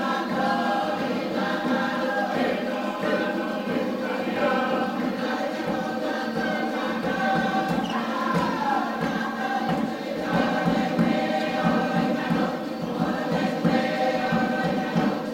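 A group of voices singing a Cook Islands chant together, holding long notes over one another.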